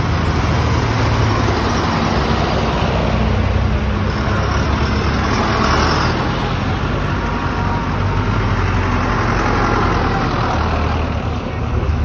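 A green John Deere tractor's diesel engine running steadily as the tractor drives slowly past close by, with a second tractor's engine behind it.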